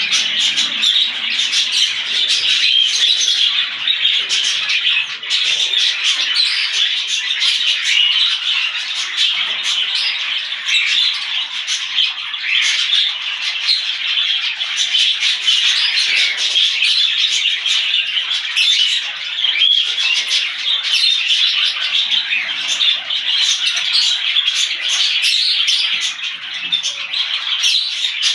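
A mixed flock of small pet parrots (budgerigars, lovebirds, cockatiels and kakariki) chattering, chirping and squawking continuously, with many overlapping sharp calls.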